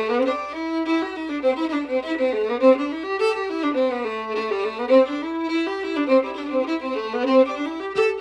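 Solo fiddle bowed through a tune, its notes moving quickly up and down in running phrases.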